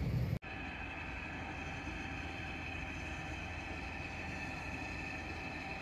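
A steady mechanical hum with a few constant tones, from a distant railway locomotive standing with its engine running. It comes in after a sudden cut about half a second in, which ends a louder low rumble.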